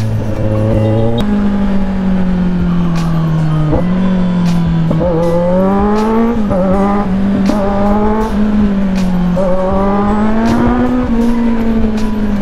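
Kawasaki Z900's inline-four engine, on an exhaust with the breadbox pre-muffler deleted, running under way at steady mid revs. The pitch rises and eases slightly several times, and there is a step change about a second in.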